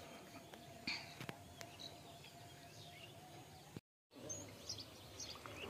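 Quiet outdoor ambience with faint, scattered bird chirps; the sound drops out completely for a moment about four seconds in, then the chirps go on.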